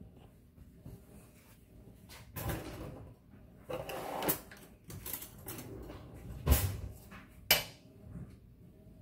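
Kitchen clatter: a handful of separate knocks and thuds, the two sharpest about six and a half and seven and a half seconds in.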